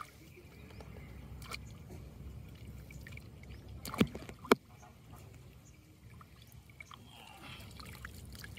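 Shallow water splashing and trickling quietly as a cast net is worked and gathered by hand in it, with two sharp clicks about half a second apart midway.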